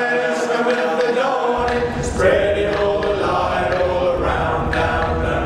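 Men's a cappella vocal group singing held chords in close harmony.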